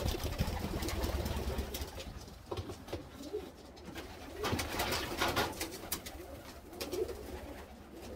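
Domestic pigeons cooing in the loft, in short low warbles a few times, with a low rumble of handling noise in the first couple of seconds and some brief rustling bursts near the middle.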